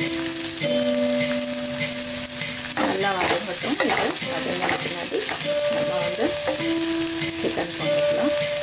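Chopped onions and green chillies sizzling in hot oil in a frying pan, stirred around the middle with a spatula.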